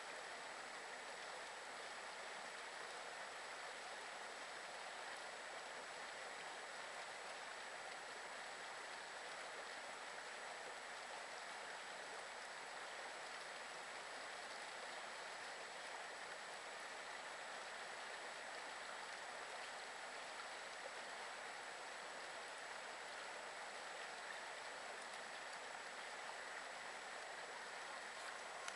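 River water rushing steadily over a low rocky weir, an even faint hiss.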